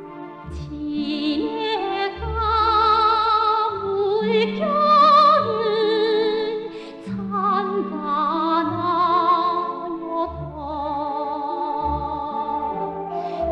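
Operatic singing with wide vibrato: a high voice holding long notes and gliding between them over an instrumental accompaniment with low bass notes.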